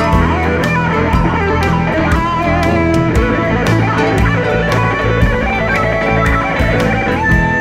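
Live blues-rock band playing an instrumental passage: an electric guitar plays lead lines with bent notes over drums, bass and a second guitar.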